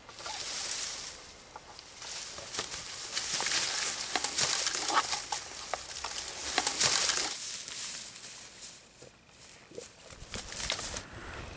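Leafy brush rustling and crackling with many small snaps as a person pushes through dense undergrowth. It quietens for a couple of seconds, then more rustling footsteps through long grass near the end.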